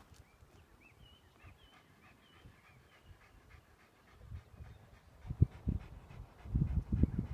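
Faint songbird song, a quick run of short repeated whistled notes, over an open-air background. From about four seconds in, irregular low rumbling gusts of wind buffet the microphone and become the loudest sound.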